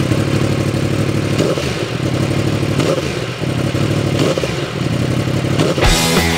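Yamaha YZF-R1's crossplane inline-four idling through an Akrapovic silencer just after start-up, with a few light throttle blips. Music begins near the end.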